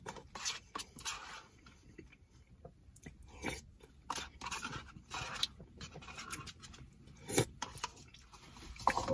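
Close-up eating: a person chewing and taking spoonfuls from a paper cup with a plastic spoon, with scattered short, sharp mouth and spoon clicks. The loudest come about seven seconds in and near the end.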